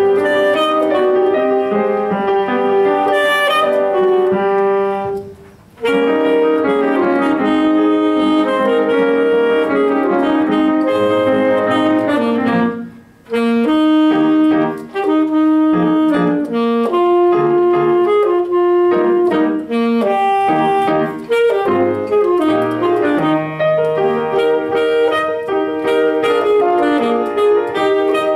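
Alto saxophone playing a solo piece in phrases with piano accompaniment, both stopping briefly twice, about five and thirteen seconds in.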